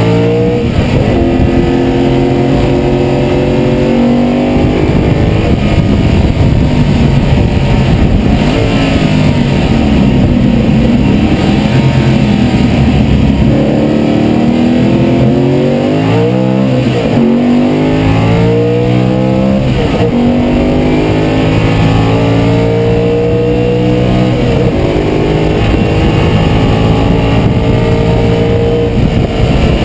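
Carbureted racing car engine heard from inside the cockpit at full race pace, its note climbing through the gears and dropping sharply on downshifts several times in the middle, then holding long steady pulls near the end.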